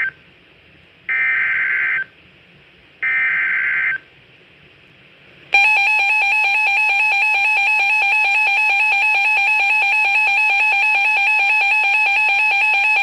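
Emergency alert header: two short bursts of harsh digital data warble a second apart, then about five and a half seconds in the steady, loud two-tone attention signal starts and holds, announcing a severe thunderstorm warning.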